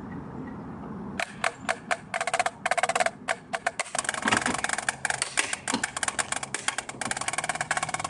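Drumsticks on drum practice pads: separate taps start about a second in, then fast rolls and dense rudiment patterns from about four seconds on.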